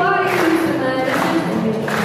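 A woman singing a pop-folk song while strumming a steel-string acoustic guitar, her voice holding and moving between sustained notes.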